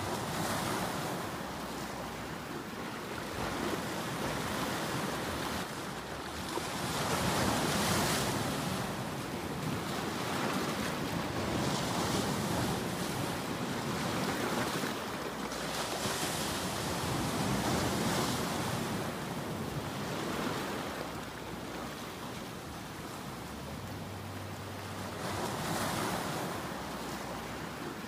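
Ocean surf: waves breaking and washing in, a steady noisy rush that swells and eases every few seconds.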